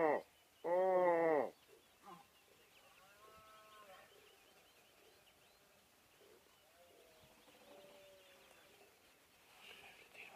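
Red deer stag roaring in the rut: two short, deep roars in the first second and a half, each dropping in pitch at its end. Only a few faint, distant calls follow.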